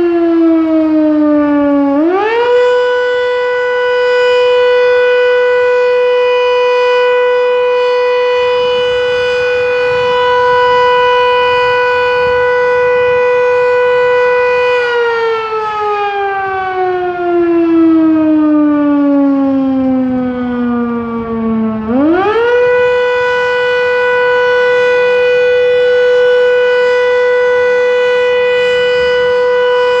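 Fire station siren sounding a long wail. It rises quickly about two seconds in and holds one steady pitch for about twelve seconds. It then falls away slowly over about seven seconds, winds straight back up to the same steady pitch, and starts falling again near the end.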